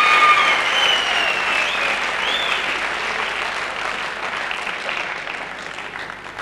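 Audience applauding, dying away gradually.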